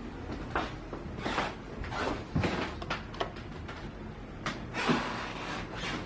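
Soft rustling and handling noises, with a few light clicks and knocks scattered through.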